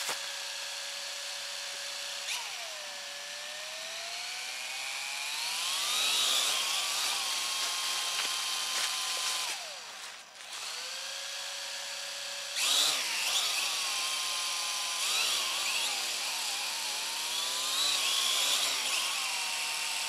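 Small toy quadcopter's electric motors whining as they are run up on the ground, the pitch rising and falling with the throttle. They cut out briefly about halfway through, then spin up again. The motors are being trimmed so the drone's thrust stays even despite a propeller with a chipped-off blade.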